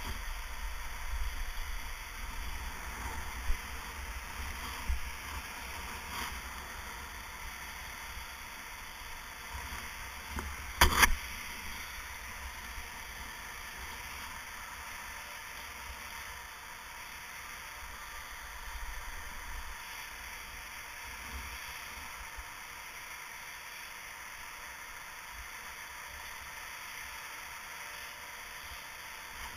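Steady rushing hiss with wind rumbling on the microphone, and a sharp knock about eleven seconds in.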